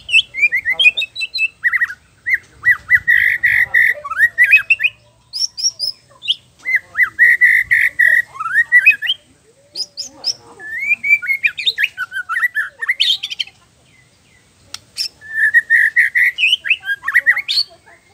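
Male white-rumped shama singing loudly: fast, varied whistled phrases mixed with sweeping notes and sharp high chips. The song comes in several long bursts with short pauses between them.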